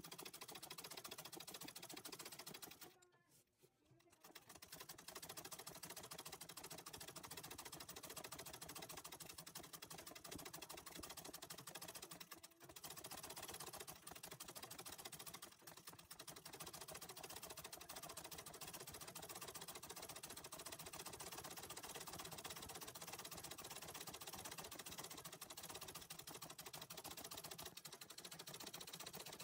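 Antique treadle sewing machine stitching quickly, the needle going in a rapid, even run of strokes as it fills in embroidery. It stops for about a second roughly three seconds in, then runs on with only brief hitches.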